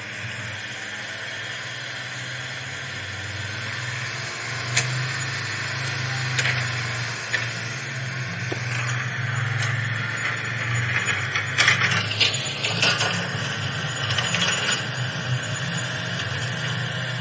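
Toy remote-control excavator driving on its tracks over gravelly ground: a steady low hum with gritty crunching, a few sharp clicks, and a run of rattling about two-thirds of the way through.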